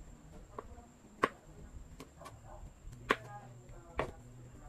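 Kitchen knife chopping on a wooden cutting board: about six separate, irregularly spaced knocks of the blade on the board, the loudest a little over a second in.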